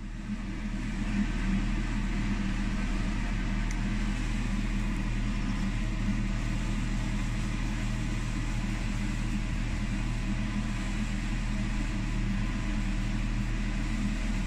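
A steady low hum that keeps the same pitch and level throughout.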